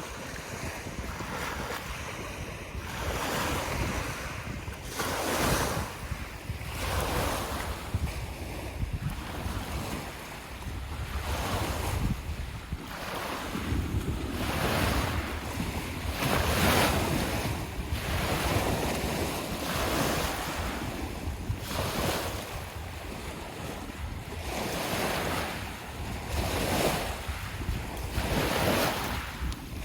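Lake waves washing in, a new swell of splashing every second or two, with wind rumbling on the microphone.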